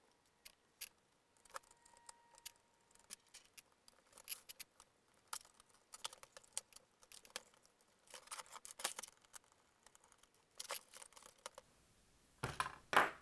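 Small scattered clicks, ticks and taps of a screwdriver working screws out of a laptop and of its plastic case and loose screws being handled, with denser clusters about eight seconds in and near the end.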